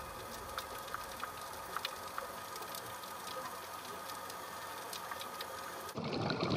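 Underwater ambience over a coral reef: a steady crackle of scattered sharp clicks, typical of snapping shrimp, over a faint hiss. Near the end a louder rushing noise swells up.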